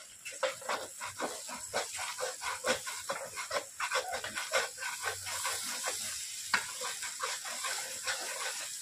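A metal ladle stirring and scraping masala frying in oil in a metal kadhai, in quick irregular strokes over a steady sizzle. The masala is being fried down until the oil separates.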